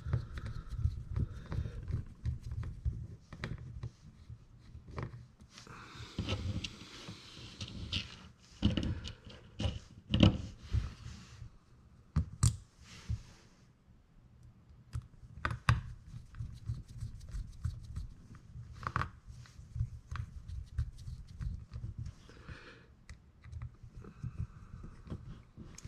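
Scattered small clicks, taps and brief rustles of a baitcasting reel's parts being handled and fitted back together by hand.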